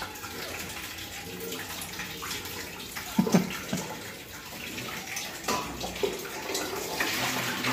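Kitchen tap running steadily, water splashing into a pan, with a few short knocks.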